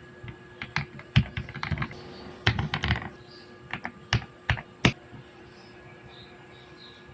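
Typing on a budget mechanical keyboard: irregular clacking keystrokes that stop about five seconds in.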